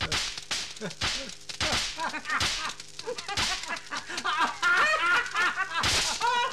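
Sharp cracks of electric sparks from a homemade high-voltage lightning machine, snapping irregularly several times a second. From about four and a half seconds in, high wavering vocal sounds join them.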